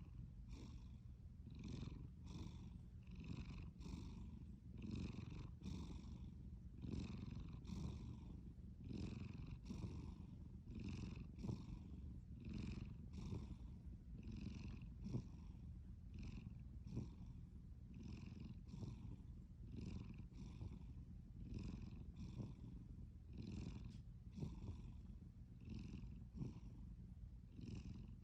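A sleeping domestic cat snoring: a steady low rumble with a breathy rasp that repeats about twice a second.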